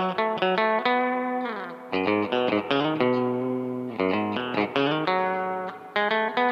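Fender Coronado II electric guitar played through a Keeley Compressor Plus pedal into an amp: a country-style run of plucked single notes and double-stops, each note held and evened out by the compressor as it rings. A note slides down about a second and a half in, and lower notes join from about two seconds in.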